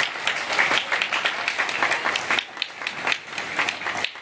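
Audience applauding, many hands clapping together; the clapping thins briefly about two and a half seconds in.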